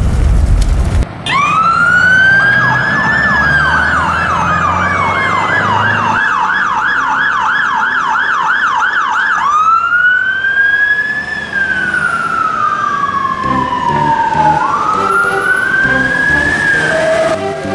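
Emergency-vehicle siren, the electronic wail-and-yelp kind used on fire engines. It starts about a second in with a rising wail, runs for several seconds with a fast yelp of about three cycles a second over a slowly falling tone, then goes back to slow rising and falling wails. Before the siren starts, a low roar cuts off suddenly.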